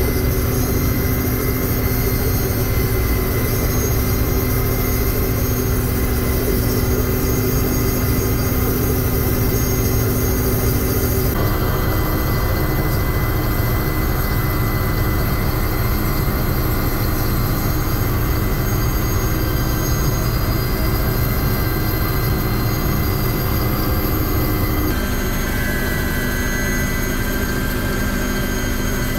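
Steady drone of firefighting aircraft engines heard from inside the cabin, with several steady tones in it; the tone changes abruptly about eleven and twenty-five seconds in. In the last few seconds it is a helicopter's engine and rotor.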